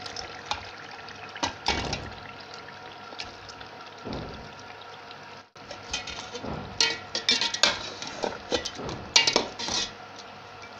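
Boiled beef pieces tipped into hot oil and masala, sizzling steadily as they begin to fry. A metal slotted spoon scrapes and clinks against the metal pot as the meat is stirred, busiest in the second half.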